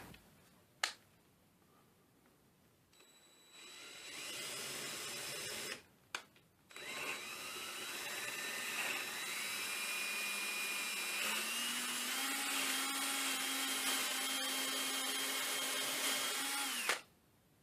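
Electric drill with a 1/4-inch bit boring into a guitar's wooden body: a short run, a brief pause, then a long steady run with a whine that rises in pitch and then holds, cutting off suddenly near the end.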